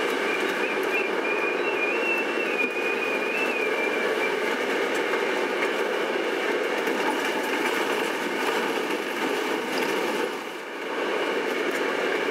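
Steady engine and road noise inside a bus driving over rough ground, with the bus body rattling. A faint wavering high tone runs through the first few seconds, and the noise briefly drops away near the end.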